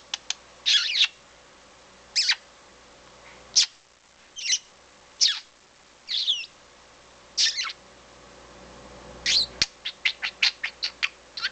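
Pet budgerigar calling: short, scratchy chirps spaced a second or so apart, then a quick run of short chirps, about five a second, near the end.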